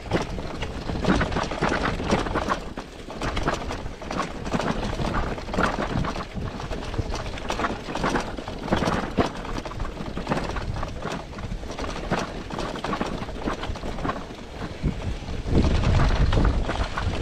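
Riding noise of a bicycle on a rough road surface: tyre rumble with a continual clatter of small rattles and knocks from the bike. Wind buffets the microphone more heavily near the end.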